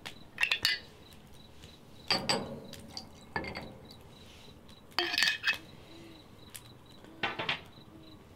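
Crickets chirping in a steady, even pulse, with several sharp clinks and knocks of glassware, a crystal decanter and a tumbler with ice, handled in short bursts.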